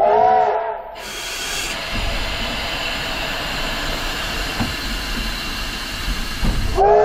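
Steam locomotive whistle gives a short blast of several pitched notes that swell and fall, then a steady hiss of steam with a low rumble in the cab; the whistle sounds again near the end.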